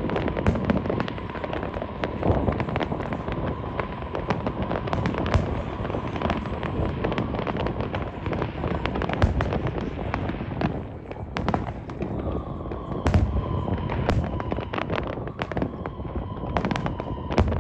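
New Year's fireworks going off in a steady barrage of rapid bangs and crackles.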